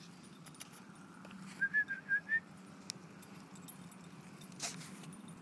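A person whistling about five quick, short, high notes to call a dog, a little after a second and a half in, over a faint steady low hum; a brief rustle follows near the end.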